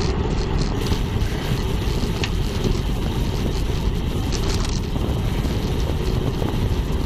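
Steady wind rumble on a bike-mounted action camera's microphone as the bicycle rolls downhill at about 30 km/h.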